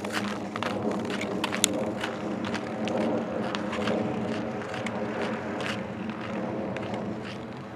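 Ice skate blades scraping and clicking over a driveway coated in uneven freezing-rain ice, with a steady low hum underneath.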